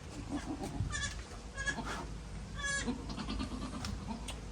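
Newborn goat kids bleating: a few short, high-pitched calls, the third one wavering.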